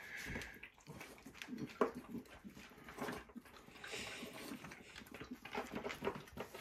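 Dogs eating cake from paper plates on a kitchen floor: faint, irregular chewing and licking noises with small clicks and scrapes.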